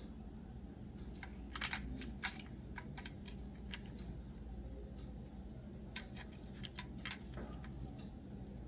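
Scattered light clicks and taps in small clusters from a small die-cast model car being handled, over a steady low hum.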